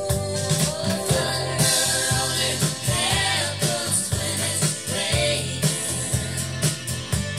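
A song with singing over drums, played back from a cassette tape on a Yamaha KX-R430 cassette deck.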